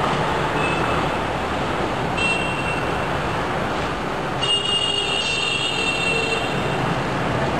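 Steady traffic rumble, with a high squeal about two seconds in and a longer one from about four and a half seconds.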